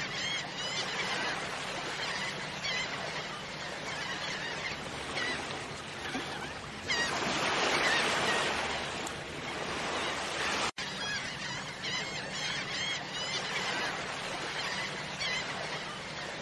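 Shorebirds calling over lapping water: a steady stream of short, high chirping calls, with a louder wash of waves about halfway through. The sound drops out for an instant about two-thirds of the way in.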